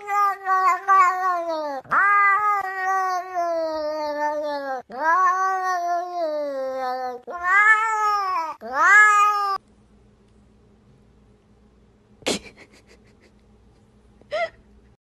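A domestic cat giving about five long, drawn-out meows one after another, each sliding down in pitch. They stop suddenly about two-thirds of the way through, leaving a faint hum and two short sharp sounds near the end.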